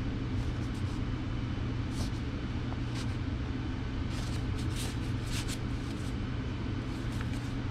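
A 5.25-inch floppy disk sliding in and out of its Tyvek sleeve, giving a few short soft rustles, over a steady low hum.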